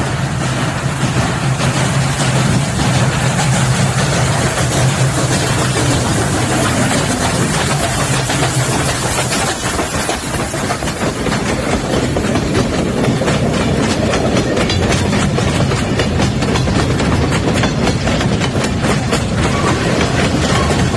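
A steam locomotive passes close by under power, followed from about halfway by freight cars rolling past, their wheels clicking over the rail joints.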